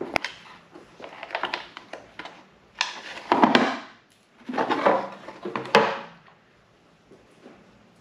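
Hand-work on a motorcycle airbox: scattered clicks and rattles of screws and tools being taken out of the cover, with a couple of longer scraping, rustling bursts as the plastic airbox cover is worked loose.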